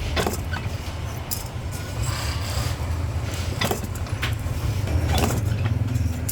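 Workshop machinery running with a steady low hum, with a few sharp knocks four times over the few seconds.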